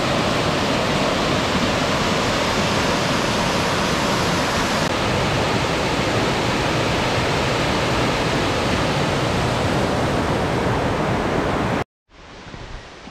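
Small waterfall rushing steadily, a dense hiss of falling water; it cuts off suddenly near the end.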